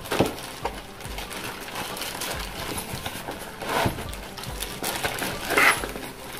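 Plastic wrapping crinkling and a nylon carry bag rustling as a plastic-wrapped tripod is pulled out of the bag, with a few louder crinkles and knocks, the loudest at about four seconds in and near the end.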